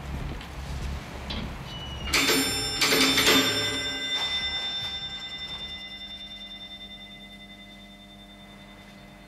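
Doorbell chime ringing: two strikes about two and three seconds in, their tones fading slowly away.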